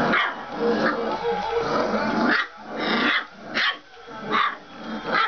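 Four-week-old Boerboel puppies growling and yapping as they play-fight: a drawn-out growl for the first couple of seconds, then a string of short, high barks and yips.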